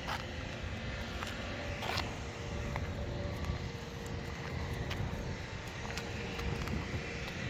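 Steady low rumble of vehicle engines and traffic, with a few light clicks, one right at the start and one about two seconds in.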